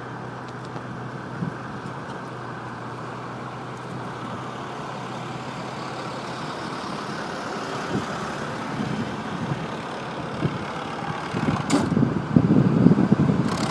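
Steady vehicle and road noise, growing louder and rougher over the last couple of seconds, with a short sharp click near the end.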